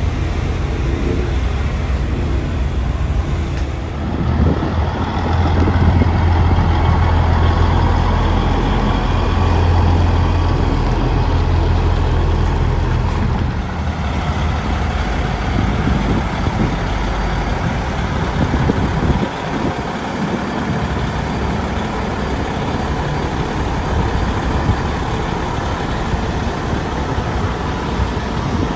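Diesel truck engines running, with a deep steady drone that drops away about two-thirds of the way through, over a constant rumble of traffic.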